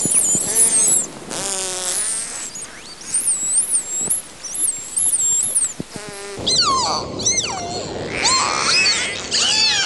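Dolphins whistling and making buzzing pulsed calls: high, looping whistles that rise and fall, broken by two bursts of rapid buzzing pulses. From about six and a half seconds in, lower sweeping whistles and chirps take over.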